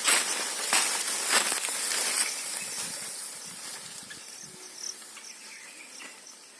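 Dry vegetation rustling and crackling for the first two seconds or so as a large Indian rat snake moves quickly away through it, then fading out. Faint, short, repeated insect chirps follow.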